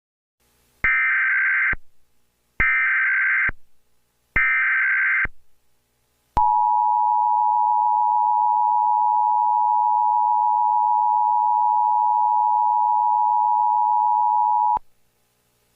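Emergency Alert System alert tones. First come three short, buzzing bursts of SAME digital header data, about a second each with short gaps. Then the two-tone EAS attention signal sounds steadily for about eight seconds and cuts off sharply, announcing an emergency message.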